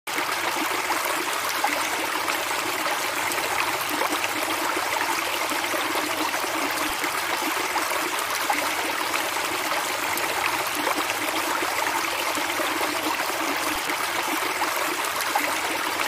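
Running water, a steady even rush with fine splashing, like a stream or small waterfall.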